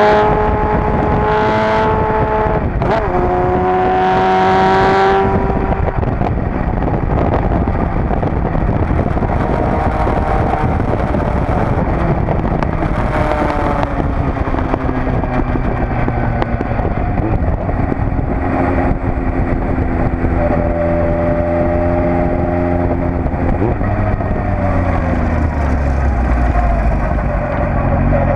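Suzuki Bandit 1200 S inline-four motorcycle engine on the move. It revs up, shifts gear about three seconds in and pulls again. It then rides on with wind noise, its note falling in the middle as it slows and settling lower near the end.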